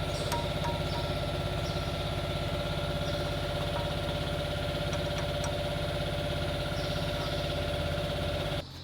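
A motor running steadily with an even, fast pulsing hum, with a few faint light metallic clicks over it; it cuts off abruptly near the end.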